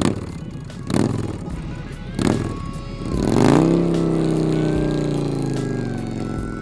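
Big Dog Ridgeback chopper's 107-cubic-inch V-twin engine running, with three sharp revs about a second apart. Then it revs up as the motorcycle pulls away, its note slowly dropping and fading as it rides off.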